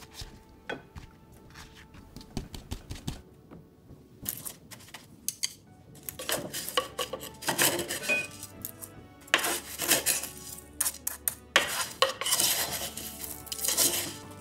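A wooden spoon stirring and scraping crushed cornflakes in a wooden bowl: a dry, crunchy scraping that grows louder and busier about six seconds in. Before that come only light taps of a utensil stirring in an enamel bowl.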